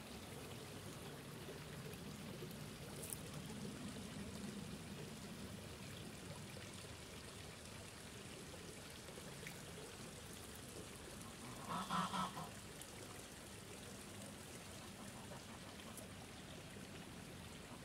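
A goose honks in one short run of about three quick calls about two-thirds of the way through, over a steady trickle of water.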